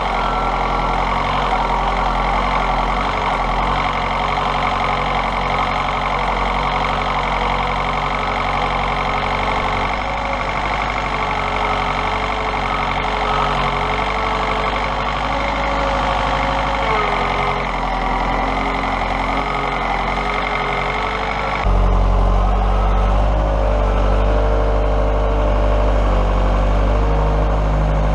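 Farm tractor engine running steadily under a wavering whine. About 22 seconds in, the sound shifts abruptly to a louder, deeper engine note.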